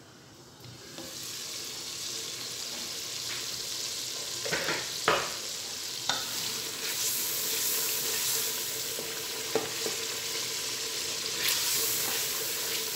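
Tomato-and-spice masala frying in oil in an aluminium pressure cooker, sizzling steadily and louder from about a second in, while a wooden spoon stirs it. A few sharp knocks sound through the sizzle, the loudest about five seconds in. This is the frying-down stage, cooking the tomatoes soft in the spiced oil.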